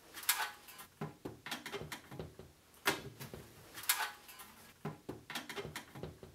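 Utility tub legs being pushed into the corner sockets of an upside-down molded tub, an irregular run of light knocks and clicks as they seat against the tub.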